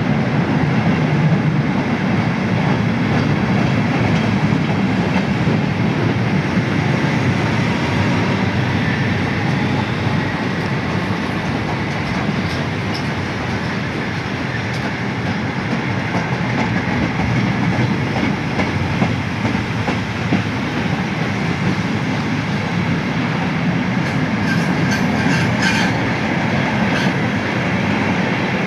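A ballast train's open freight wagons rolling past close by, a steady rumble of steel wheels on the rails. A cluster of sharp metallic clicks comes near the end.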